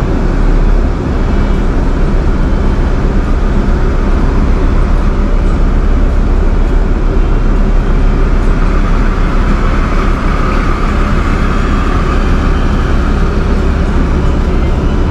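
Vehicle on the move: a loud, steady low rumble of engine and road noise.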